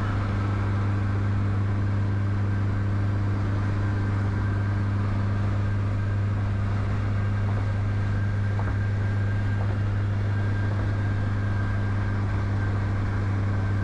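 A car cruising at a steady highway speed: an even, unchanging engine drone with road noise.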